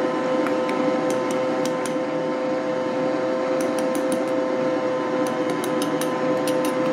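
Electric stand mixer running steadily with a strong motor hum, beating cake batter, with scattered light clicks.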